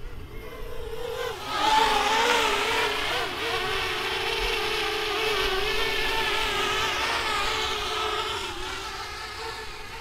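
Parrot Bebop quadcopter's motors and propellers whining, the pitch wavering as the motor speeds shift. The whine swells loud about two seconds in, holds, then slowly fades toward the end as the drone flies off.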